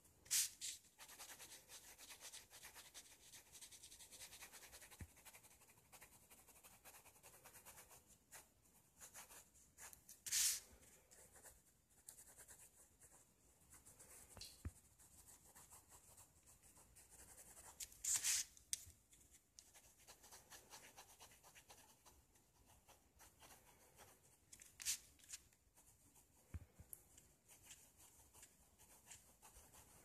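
Ballpoint pen scratching faintly across lined notebook paper in quick sketching and shading strokes. Four brief, louder hisses stand out among the strokes.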